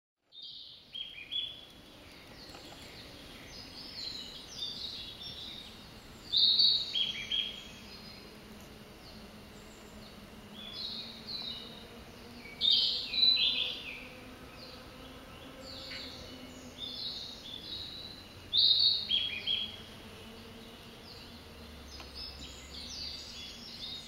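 Male narcissus flycatcher singing: loud phrases of short, quickly changing whistled notes about every six seconds, with softer notes in between.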